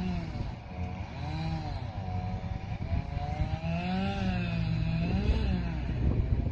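An engine revving up and down, its pitch rising and falling in repeated swells, over a low rumble of wind on the microphone.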